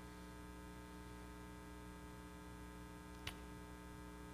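Steady electrical mains hum with its evenly spaced overtones, and one short faint click about three seconds in.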